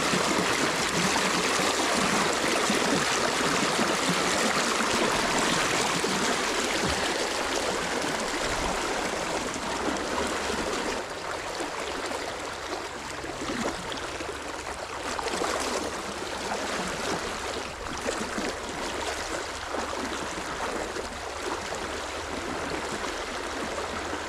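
River water flowing steadily, a continuous rush of running water that becomes a little quieter about halfway through.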